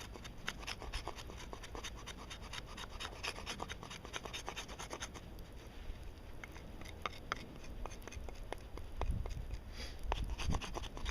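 Knife blade scraping and shaving a stick of fatwood (resinous pine), a steady run of short, sharp scraping strokes. A low rumble comes in after about nine seconds.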